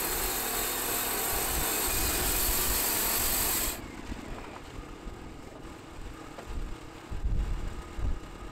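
Wood-Mizer portable sawmill machinery giving a loud, steady hiss for about four seconds, then cutting off suddenly. Afterwards it is quieter, with wind buffeting the microphone.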